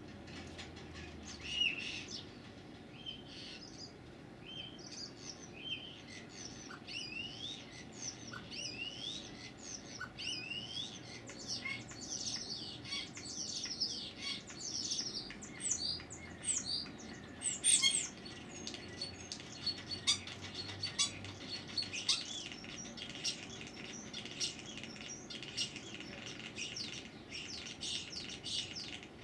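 A songbird singing a long, varied run of short chirps, whistles and quick up-and-down slurred notes. It starts sparse and grows denser and louder from about a third of the way in.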